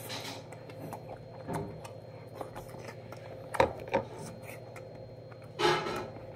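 Eating at a table: a metal spoon knocks twice against the earthenware stew pot and bowl about three and a half seconds in, with light scraping. A short breathy noise comes near the end, over a faint steady hum.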